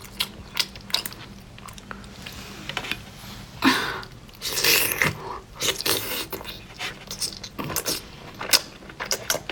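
Close-up eating sounds: sea snail (conch) meat being bitten and chewed, with many short sharp clicks and a few longer, noisier stretches in the middle.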